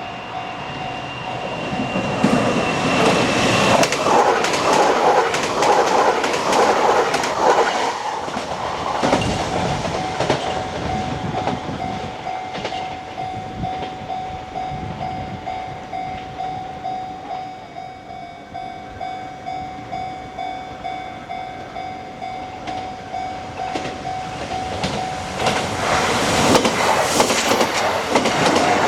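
Kintetsu trains passing over a Japanese level crossing, wheels clattering over the rail joints, while the crossing's warning bell rings steadily. The train noise swells a couple of seconds in, eases off through the middle, and swells again near the end.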